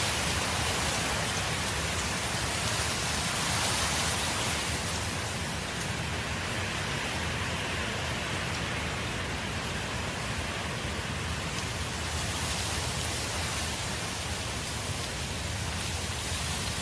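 Steady rain: an even hiss with no music.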